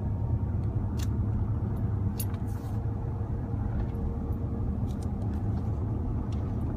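2008 Ford Ranger FX4 driving at low speed: steady low road and drivetrain rumble with a faint, thin steady whine above it and a few light clicks. The whine is an unexplained noise that shows up only between 35 and 45 km/h, in neutral or any gear, accelerating or cruising.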